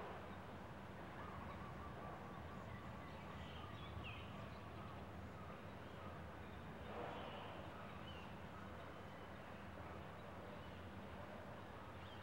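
Steady low background hum, with a few brief, high bird chirps now and then.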